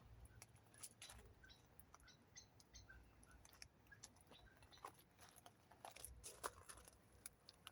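Near silence with faint, irregular crunches and small clicks, most likely footsteps on a wet garden path, and a low rumble now and then.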